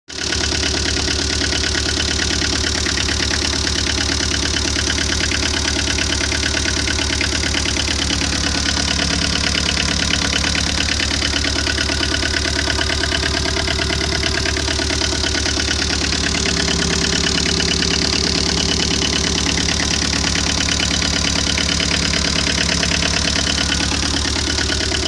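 Tata Ace mini-truck engine running steadily at idle, with an even, fast firing rhythm.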